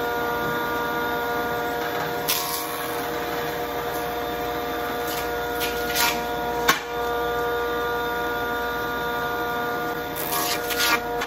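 Jointer motor running with a steady whine, broken by brief sharp cuts as the knives bite into a bark-covered log pushed across the cutterhead, about two seconds in, a few around six seconds, and a cluster near the end.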